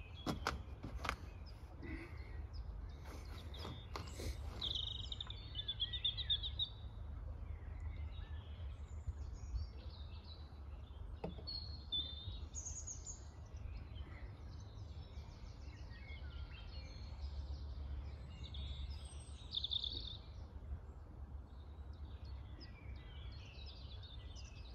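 Small birds chirping and warbling on and off, over a steady low rumble. In the first few seconds there are a few knocks: footsteps on a wooden deck and someone sitting down on a wooden bench.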